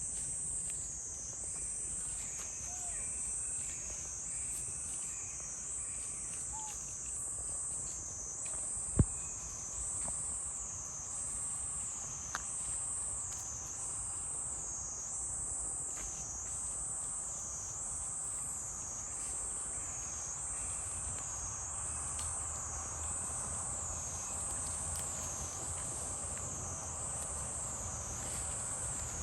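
Insect chorus: a steady high buzzing that swells and fades about every second and a half. A single sharp click about nine seconds in stands out above it.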